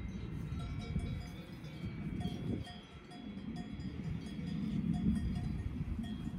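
Cowbells on grazing cows clanking and ringing in short repeated strokes, over a low rumble of wind on the microphone.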